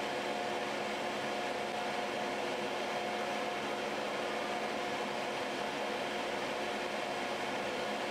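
DC TIG welding arc from an ESAB ET 200i inverter burning on a brass workpiece, a steady hiss with a faint steady whine. The foot pedal holds the current at roughly 90 to 118 amps.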